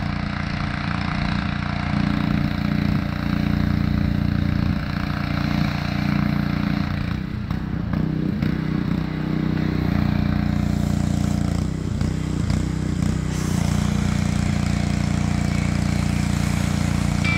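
Small gasoline engine of a pressure washer running steadily, its note wavering for a few seconds around the middle as the spray is used.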